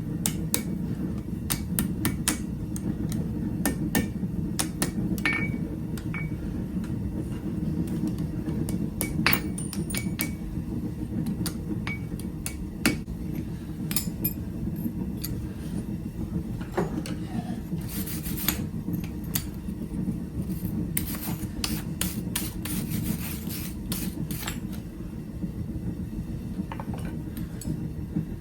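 Hand hammer striking steel on an anvil while forging, in irregular blows with a brief ring after some strikes. The blows come thick at first, then spread out, with quick clusters about eighteen and twenty-two seconds in, over a steady low hum.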